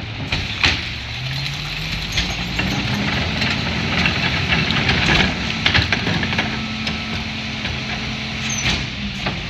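Diesel engine of a Mack LE rear-loader garbage truck revving up about a second in and holding high revs while the McNeilus packer cycles, compacting a load of recycling. Scattered knocks and clatter of recyclables and the emptied cart sound over the engine.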